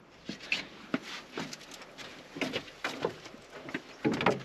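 Footsteps of sandals on a wooden boardwalk, irregular light knocks and scuffs, heard from inside a hollow tree trunk, with a short vocal sound near the end.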